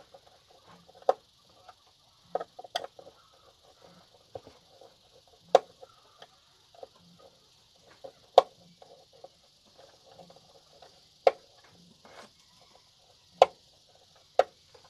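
A screwdriver and wires being worked at the screw terminals of a solar charge controller: irregular sharp clicks, a second or a few seconds apart, with fainter ticks and rustling between them.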